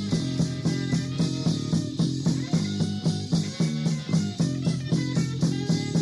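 Rock music: guitar and bass over a steady, even beat.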